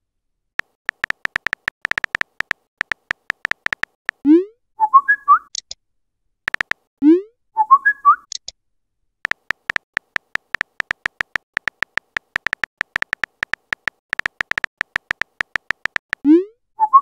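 Phone keyboard tap clicks in quick runs as text is typed, broken three times by a short message alert: a low rising swoop followed by a bright chirp.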